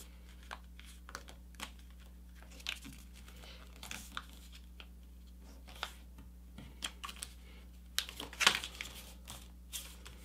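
Sheet of paper rustling and crinkling as it is folded and creased by hand into a paper airplane wing: scattered short rustles and scrapes, busiest about eight seconds in, over a faint steady low hum.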